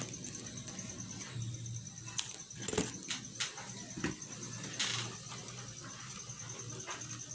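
Scattered light clicks and taps of cut plastic bottle pieces and small craft items being handled on a table, with a faint steady hum behind.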